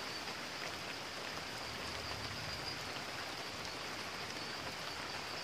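Steady rain falling, mixed with the running water of a shallow rocky stream.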